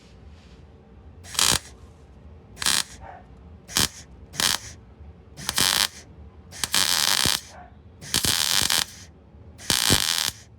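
Electric welder laying short stitch welds on car body sheet metal: eight bursts of crackling, the later ones longer, as a hole in the rusted panel is filled in.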